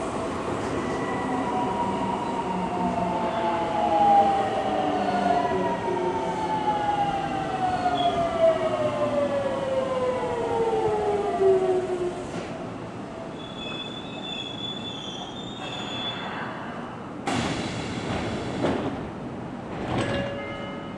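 Seibu 6000 series electric train braking into a station: its traction motors' whine falls steadily in pitch for about twelve seconds as it slows to a stop. Near the end, a short loud hiss of air as it stands and the doors open.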